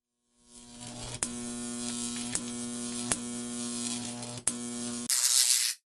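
Steady electrical buzz, rich in overtones, broken by four sharp clicks and ending in a brief, louder burst of hiss.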